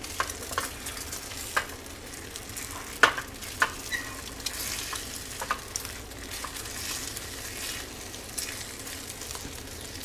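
Eggs and stewed green peppers sizzling in olive oil in a hot metal pan, with a silicone spatula scraping and knocking against the pan now and then as the eggs are pushed around.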